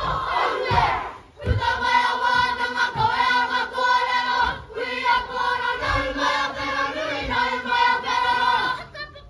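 Māori kapa haka group singing a waiata in unison, many voices held on sustained notes, with dull low thuds every second or so.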